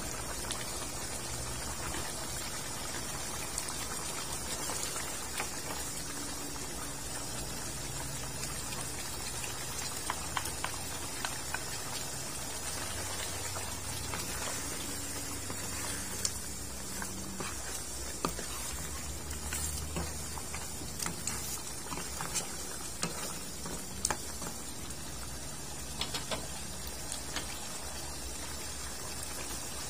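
Pork ribs simmering in a dark soy-based sauce in a wok: steady bubbling with many small scattered pops and clicks, and a wooden spatula stirring through the pan at times.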